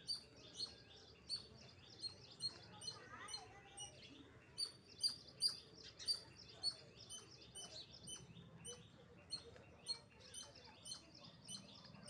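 Squirrel giving a run of short, sharp chirping calls, about two a second, repeated steadily.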